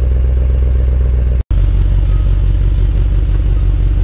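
2018 Ram Power Wagon's 6.4-litre HEMI V8 idling through a newly fitted Magnaflow cat-back exhaust: a steady, low exhaust note. A split-second break in the sound comes about a second and a half in.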